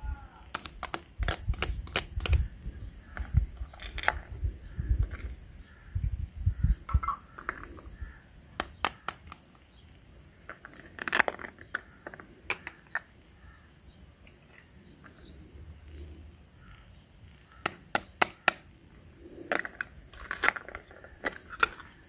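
Plastic toy fruit being handled and cut with a plastic toy knife: irregular clicks and knocks of hard plastic and short rasping rips as the cut pieces pull apart. Faint bird chirps repeat in the background.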